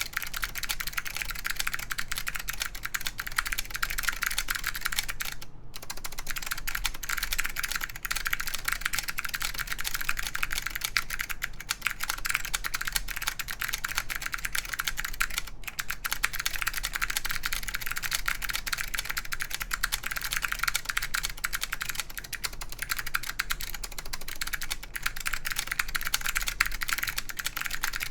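Continuous typing on a mechanical keyboard with clicky SKCM Blue Alps switches, wax-boiled, in an aluminium plate under Apple Extended Keyboard II keycaps. It is a dense, steady run of sharp clicks, with two brief pauses, about five and a half and fifteen and a half seconds in.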